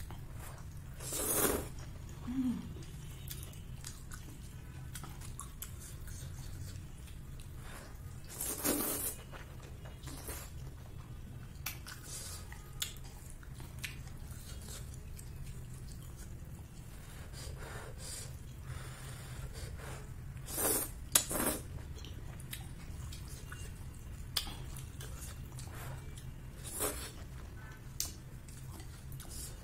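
Close-up eating sounds of a person chewing noodles, with a few short louder bursts spread through and small clicks in between, over a steady low hum.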